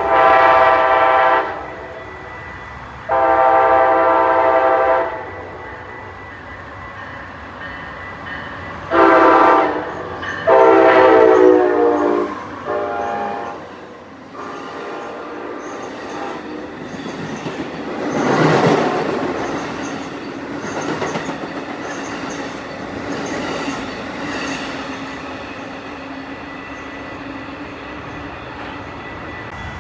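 Locomotive horn sounding the grade-crossing pattern (two long blasts, a short one, then a long one trailing into a shorter one), followed by the train passing, its wheels clicking over rail joints.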